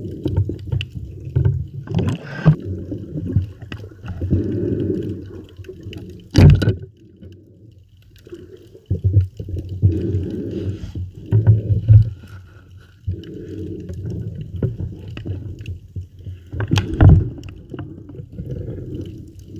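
Muffled underwater water noise heard through a camera's waterproof housing, swelling and fading in irregular gurgling rushes as a diver moves. A few sharp knocks cut through it, the loudest about six and a half seconds in and another near the end.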